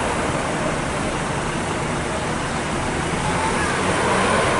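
Road traffic: a vehicle's engine hum under a steady rush of tyre and road noise, growing a little louder near the end.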